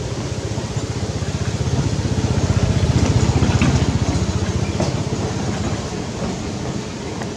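A motor engine running with a steady low pulsing, swelling louder around the middle and then fading again.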